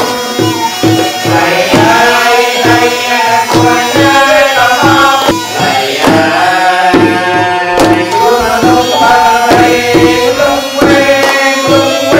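Traditional Khmer wedding music: a melody over a steady hand-drum beat.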